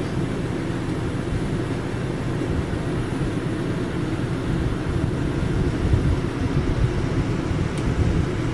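A steady low rumbling noise, even in level throughout.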